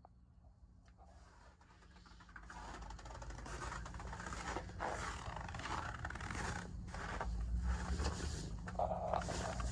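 Wind and handling noise on the microphone: a rustling hiss that grows louder about two seconds in, with low rumbling gusts near the end.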